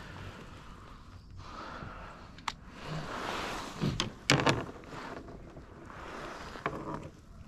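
Handling noises aboard a fishing kayak: swishing and rustling with a few sharp knocks, the loudest cluster about four seconds in and a smaller one near the end.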